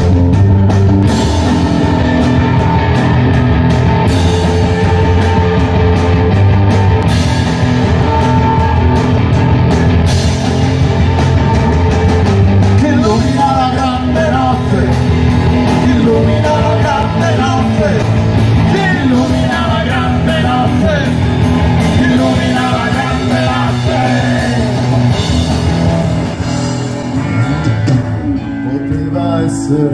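Live rock band playing at full volume: electric guitars, bass guitar and drum kit, with a lead guitar line that bends in pitch through the middle of the passage.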